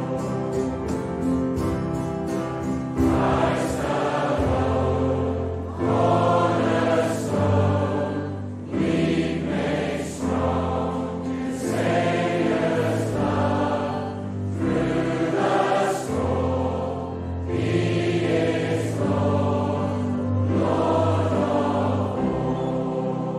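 Large group of voices singing a hymn together, over low held accompanying notes.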